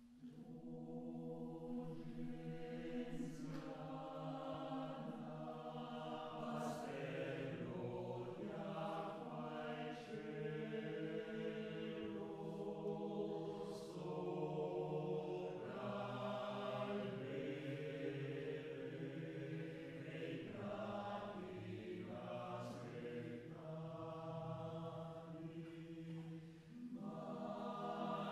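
Men's choir singing a slow song in long, held phrases, with short pauses between phrases.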